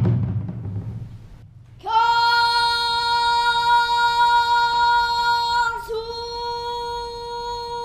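Drumming on Korean percussion fades out in the first second, then a single high voice holds one long, steady sung note, breaking briefly about six seconds in before carrying on.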